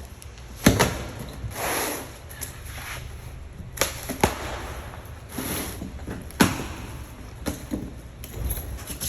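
Several sharp knocks and thuds, with two brief swishing rustles between them, from gear being handled and moved.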